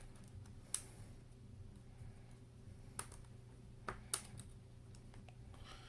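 Four faint, sharp clicks spread over several seconds: small flex-cable connectors being pried off and unclipped from an iPad Air 2's logic board.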